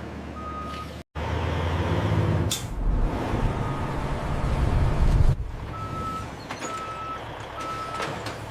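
Heavy vehicle with its engine running as a low, loud rumble, and a reversing alarm beeping at one steady pitch: twice near the start, then three even beeps near the end.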